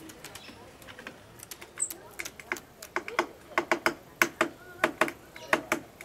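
Great tit hammering a seed with its bill against the wooden bird table to crack it open: a run of sharp taps, several a second, starting about a second and a half in and getting louder.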